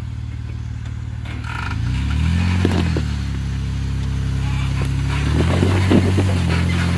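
Off-road Jeep engine idling, then revved up twice in surges of a second or two as it crawls an obstacle, with knocks and scrapes of rock under the vehicle during the revs.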